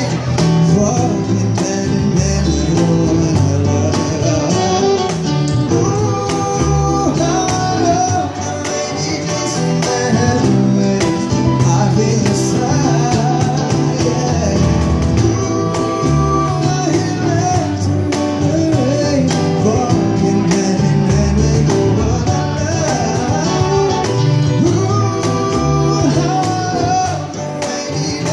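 Male vocalist singing a pop ballad with a small live acoustic band: keyboard, acoustic guitar, cajon and electric bass playing a steady groove behind the voice.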